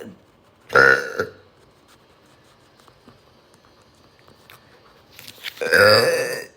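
A woman burping twice: a short burp about a second in, then a longer, loud burp near the end.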